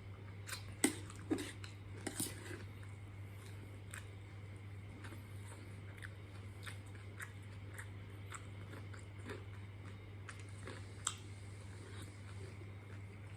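A person chewing food close to the microphone, with crunchy bites and scattered light clicks, over a steady low hum.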